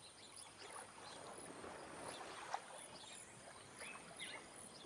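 Faint mangrove-forest ambience: a soft steady hiss with a few short, high bird calls scattered through it.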